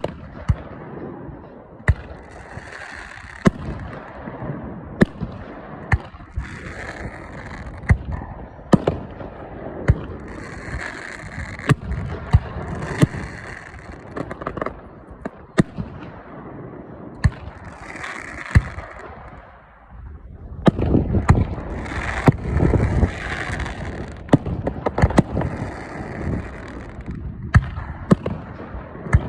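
Fireworks shells bursting in a string of sharp bangs, several followed by a hissing crackle, with a denser, louder volley about twenty seconds in.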